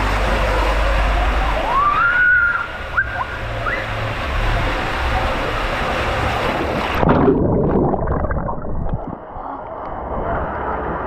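Rushing and splashing water at a water-park slide, with a brief rising-and-falling high-pitched cry about two seconds in. At about seven seconds the sound turns suddenly muffled and duller.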